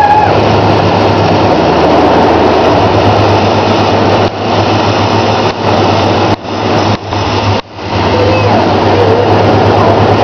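A 1999 Toyota Tacoma engine idling steadily; the owner blames its slight knock on carbon build-up. Between about four and eight seconds in, the sound dips sharply and briefly several times.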